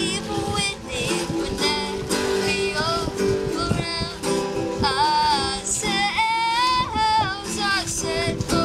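A boy singing a song in a high, unbroken voice, accompanying himself on a strummed acoustic guitar.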